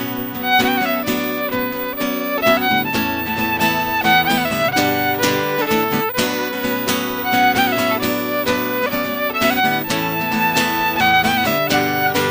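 Fiddle playing the melody of an Irish traditional song as an instrumental break, in a quick run of short, ornamented notes, with guitar accompaniment underneath.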